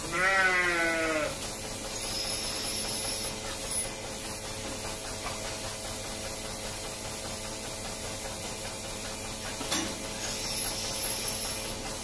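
A sheep bleats once, a wavering call lasting about a second, then a steady hum of milking-parlour machinery carries on, with a single knock near the end.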